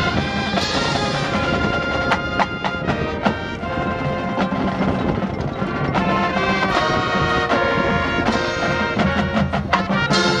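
High school marching band playing a field show: brass and woodwinds over a pit and drumline with frequent sharp percussion hits.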